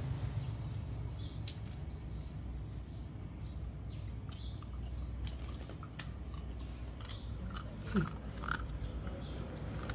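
A puppy nosing and mouthing a piece of fruit on a tiled floor: scattered soft clicks and mouth smacks, with a couple of short squeaky chirps near the end, over a low steady hum.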